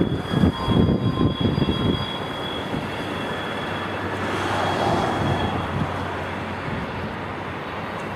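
Wind buffeting the microphone in gusts for about two seconds, then a steady rush from the fast-flowing, swollen river, with the low rumble of distant diesel-hauled freight trains underneath.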